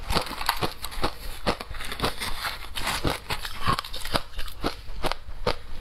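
Shaved ice being bitten and chewed close to the microphone: a quick, irregular run of crisp crunches, several a second.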